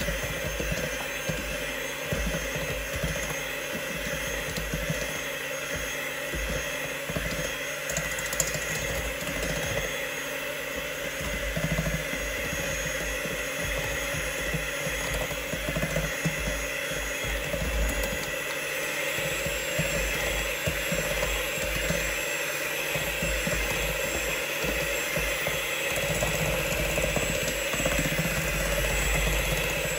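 Polaris electric hand mixer running steadily, its beaters whisking eggs and sugar in a stainless steel bowl.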